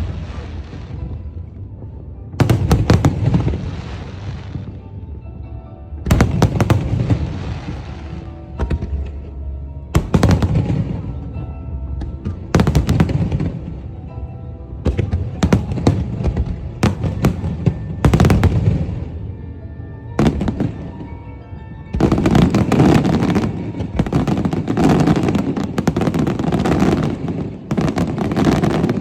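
Aerial fireworks show: volleys of shell bursts every few seconds, each a cluster of sharp bangs trailing off over a second or two. About two-thirds of the way in, the volleys run together into a dense, continuous barrage.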